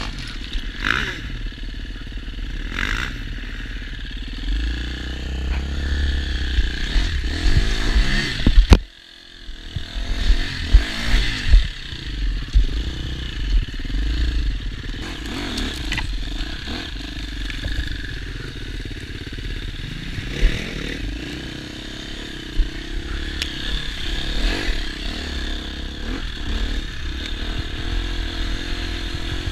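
New KTM EXC enduro motorcycle's engine being run in, ridden with the throttle rising and falling, heard from the rider's helmet camera with wind buffeting the microphone. The engine note drops away sharply for a moment about nine seconds in, then picks up again.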